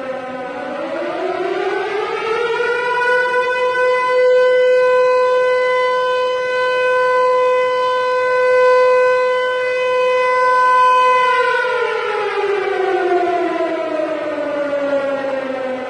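Civil defense siren, said to be a Harry O Ricci Siro-Drone, winding up from a low pitch over the first two or three seconds, holding a steady wail for about eight seconds, then winding down in a long falling glide.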